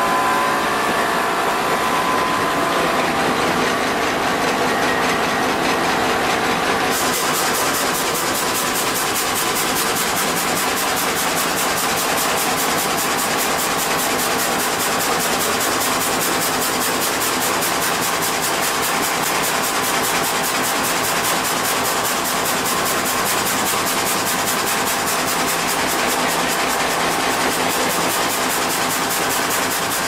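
Log sawmill machine running steadily while its spiked feed rollers drive a pine log through the saw, giving a continuous loud mechanical noise. The sound turns brighter and sharper about seven seconds in.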